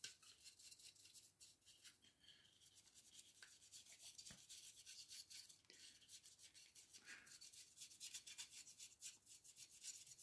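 Faint, rapid scratchy strokes of a makeup brush dry-brushing paint onto the inside of a miniature's wing, a little louder in the second half.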